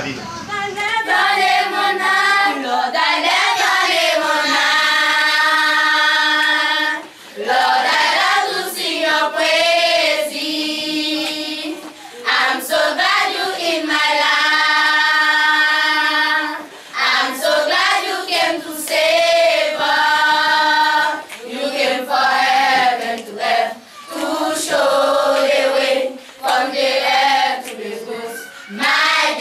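Children's choir singing, in phrases of long held notes with short breaks between them; the singing starts about a second in.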